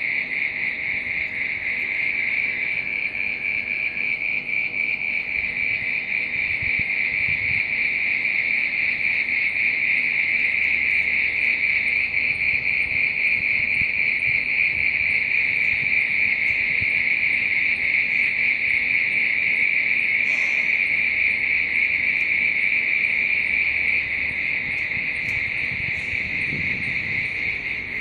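A steady, dense, high-pitched chorus of night insects such as crickets, continuous and unbroken, easing slightly in level near the end.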